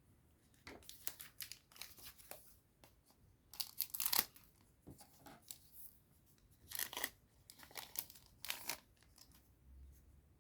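A trading card booster pack wrapper being torn open and crinkled, in a series of short, irregular rips and rustles, the loudest about four seconds in.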